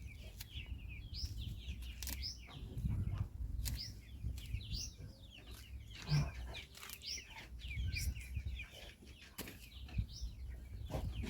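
Birds chirping over and over, many short high calls, over a low outdoor rumble with a few sharp clicks.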